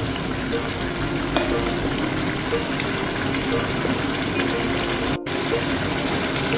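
Chicken simmering in a thin chili-spice sauce in a pan, a steady bubbling hiss with a metal spoon stirring through it. The sound cuts out for an instant a little after five seconds in.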